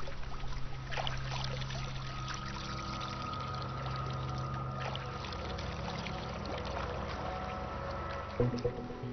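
Water splashing and trickling as crab-eating raccoons wade and scuffle in a shallow stream, over a sustained low drone of background score that changes with a louder swell near the end.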